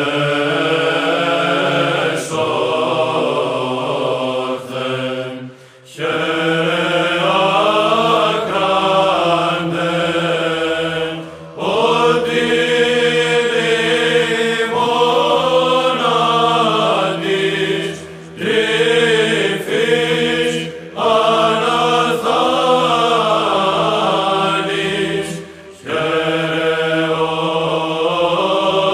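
Church chant: voices singing slow phrases over a steady held low note, with short breaks between phrases.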